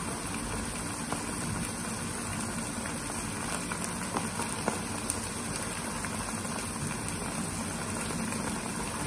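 Chopped capsicum and carrots sizzling steadily in hot oil in a wok on a high gas flame, with faint scattered pops of spattering oil.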